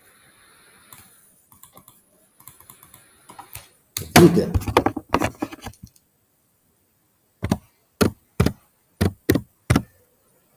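Computer keyboard typing. Light scattered key clicks give way to a dense flurry of keystrokes about four seconds in. After a pause come six separate keystrokes about half a second apart, typing a six-letter word.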